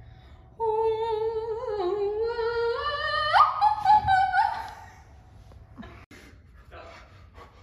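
A girl's solo voice singing a long wordless line with vibrato, climbing in steps to a high note, then stopping about five seconds in.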